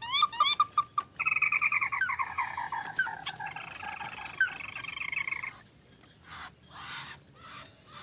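A rail or crake calling: a quick series of short rising notes in the first second, then from about a second in a harsh, falling call repeated rapidly for about four seconds, from a bird caught in a trap line. Near the end come several short rustling bursts of wings and handling as it is taken out.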